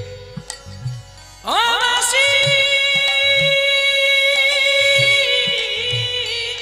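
Bengali adhunik song music. A melody line slides up into a long held note about a second and a half in, over a steady drone and soft, regular drum beats.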